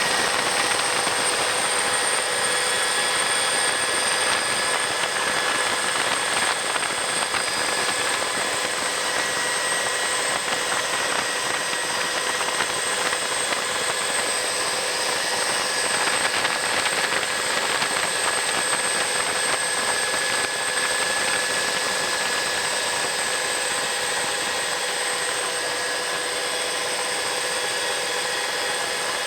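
Sikorsky S-58T helicopter's turboshaft engines and rotor running steadily, a continuous rush with several steady high whining tones from the turbines.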